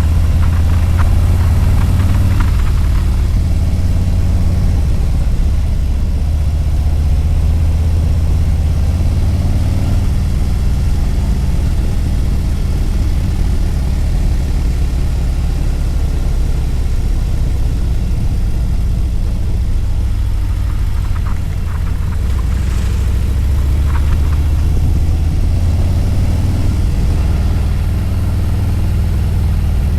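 Harley-Davidson motorcycle's V-twin engine running low and steady while riding. It eases back through the middle stretch and picks up again near the end.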